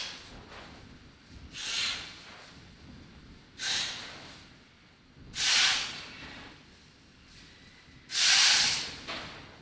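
A sound sculpture of tall hanging dark strips giving out short hissing rushes, about one every two seconds, each louder than the one before; the last, about eight seconds in, is the loudest.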